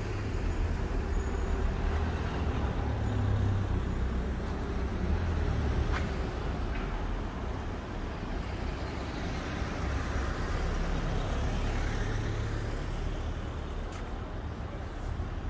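City street traffic: cars and heavier vehicles driving past with a steady low rumble of engines and tyres, louder twice as vehicles go by.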